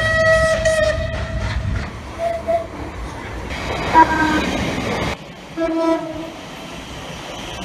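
British train horns sounding in a series of separate blasts: a held horn note that stops about a second in, then short toots near two, four and six seconds, over the rumble of a train on the move.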